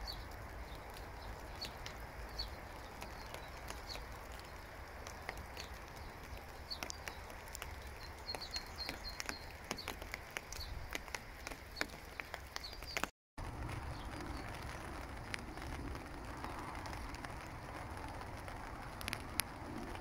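Outdoor nature ambience: small birds chirping over a steady hiss of light rain with scattered drop ticks. A brief dropout about thirteen seconds in, after which the bird chirps mostly stop and the rain continues.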